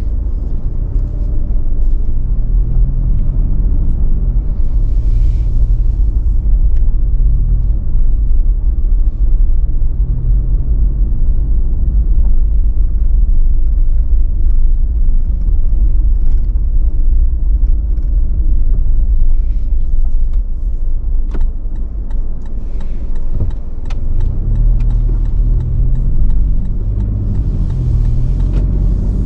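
Toyota Land Cruiser Prado driving along: a steady low rumble of engine and road noise, with the engine note rising and falling as the car changes speed.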